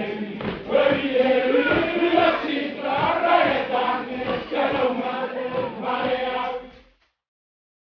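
A large group of men chanting and singing a traditional Tanna dance chant to a steady rhythmic beat, cutting off suddenly near the end.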